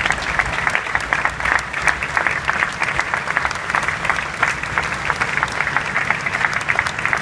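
A large crowd applauding: many hands clapping in a dense, steady patter that holds at one level throughout.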